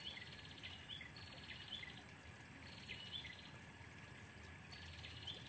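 Faint bird calls, each a quick ticking trill ending in a short upturned note, repeated about every second over quiet outdoor background.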